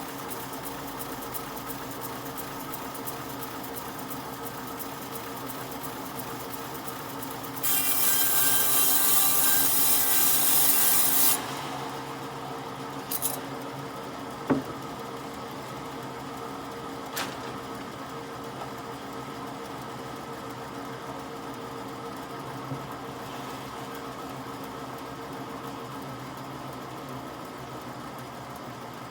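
A machine hums steadily throughout. About eight seconds in, a loud, harsh scraping of a tool working wood lasts about four seconds and stops, followed by a few sharp knocks.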